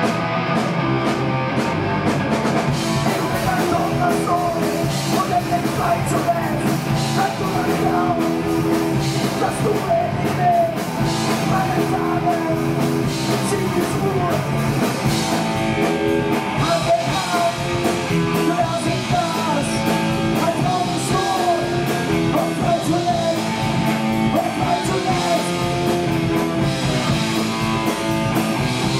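Live punk rock band playing a song: loud distorted electric guitars over a driving drum kit.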